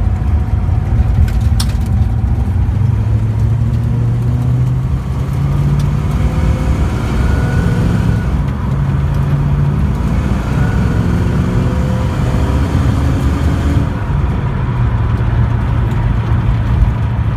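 Freshly rebuilt Mopar 340 V8 engine running as the car is driven slowly; its pitch rises and drops back twice as it picks up speed and eases off, then settles steady near the end. A single sharp click about a second and a half in.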